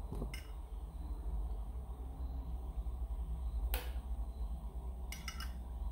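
A few sharp metal clicks from a Zippo lighter being handled: a faint one at the start, a loud one near the middle, and a quick cluster of several near the end, over a low steady hum.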